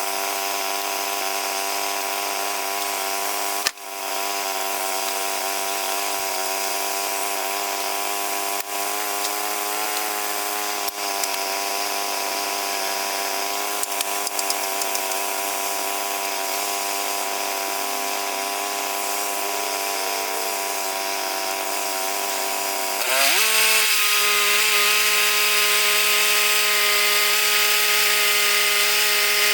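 Engine of a band sawmill running steadily at speed; about 23 seconds in its pitch dips under load and the sound turns louder and hissier as the Ripper 37 blade cuts into white oak.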